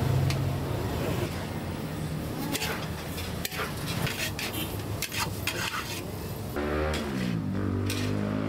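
Metal utensil clanking and scraping against a large cooking pan, a string of sharp clinks, over a low traffic hum that fades after the first second or so. Music with gliding notes comes in near the end.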